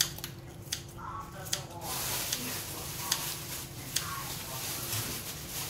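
Kitchen scissors snipping through crispy fried chicken fillet, a sharp snip about once a second. A steady hiss comes in about two seconds in.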